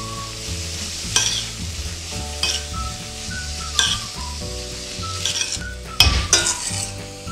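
Diced onions and pepper-and-tomato paste sizzling as they sauté in butter in a stainless steel pot, stirred with a metal spoon that scrapes and clinks against the pot about six times, loudest about six seconds in.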